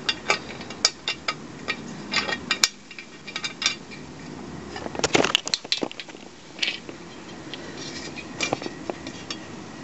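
Irregular light metallic clicks and clinks of a bolt being worked by hand into a freshly repaired aluminium sump thread, which is still stiff to turn.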